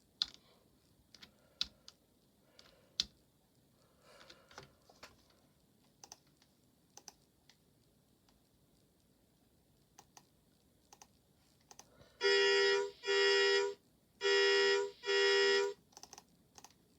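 Horn of a school bus honking four short blasts in two pairs, each a steady multi-note tone, after about twelve seconds of faint scattered clicks.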